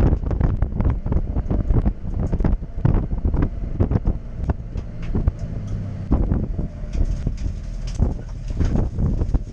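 Toyota Yaris D-4D diesel engine running, heard from inside the bare, stripped race-car cabin, with constant irregular rattling and knocking from the loose interior and roll cage over a steady low hum.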